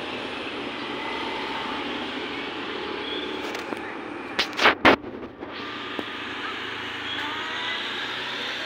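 Steady outdoor background noise, like distant road traffic, with three short loud bursts of noise close together about halfway through.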